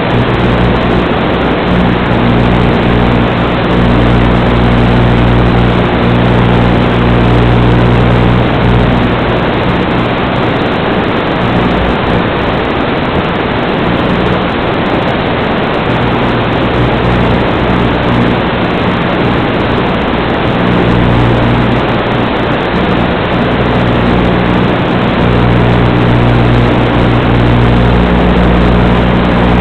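Steady loud hiss and low buzz of static from an analog FPV video link's audio channel, recorded through the goggles' DVR; the buzzing tones fade in and out while the hiss stays constant.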